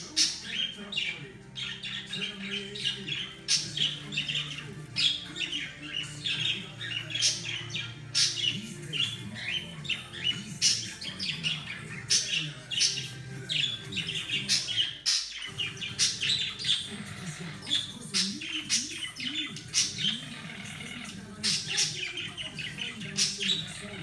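A cockatiel nibbling and biting into a piece of apple with its beak: irregular short crunching clicks, some in quick clusters.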